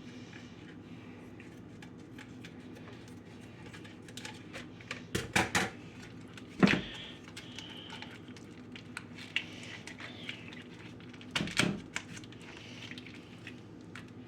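Ground chicken being handled out of its plastic package into a mixing bowl: scattered light clicks and crinkles, with a few louder clatters and knocks at about five seconds, near seven seconds and near twelve seconds.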